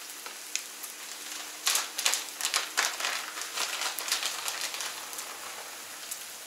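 Food frying on a hot propane flat-top griddle: a steady sizzle, with a burst of sharp crackles and pops from about one and a half to four seconds in.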